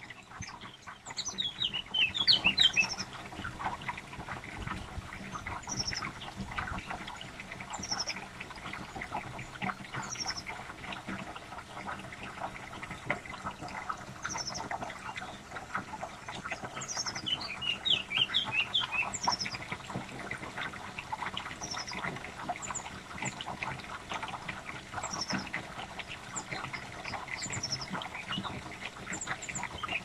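Common blackbird young begging at the nest as the male parent feeds them: a dense scratchy chatter of squeaky begging calls, thin high call notes repeating about every two seconds, and quick runs of falling notes about two seconds in and again around eighteen seconds.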